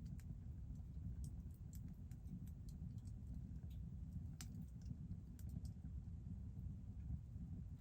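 Burning firewood crackling, with irregular sharp pops and snaps over a steady low rumble of the fire.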